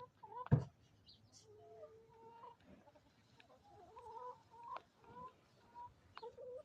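Chickens clucking softly, a series of low drawn-out calls, with one sharp knock about half a second in.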